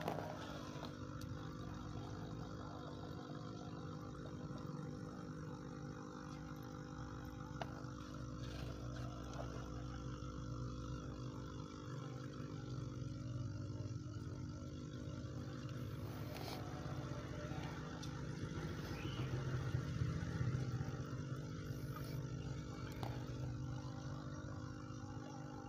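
Aquarium air pump humming steadily, with air bubbling up through the water from its air line.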